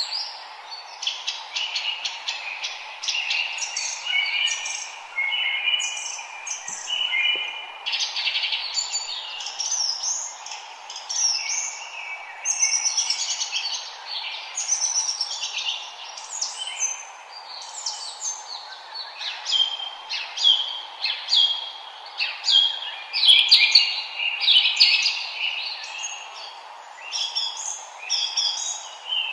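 Several forest birds chirping and singing at once, with quick overlapping calls and trills throughout, over a steady background hiss.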